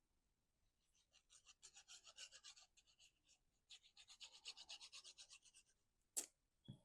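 Faint rapid rubbing strokes on paper, in two runs of about two seconds each, followed near the end by a sharp click and a soft thump.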